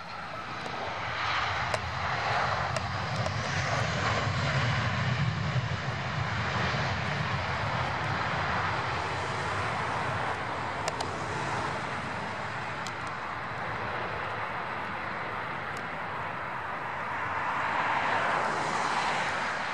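Jet engines of an Airbus A320-family airliner running loud and steady as it rolls down the runway, a continuous roar with a low rumble underneath. The roar swells a few seconds in and again near the end.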